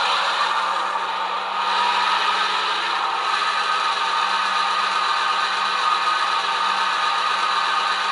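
Sound decoder in a Rapido model of a GMD SW1200RS diesel switcher playing its diesel engine sound, running steadily while the model pulls against a pull meter.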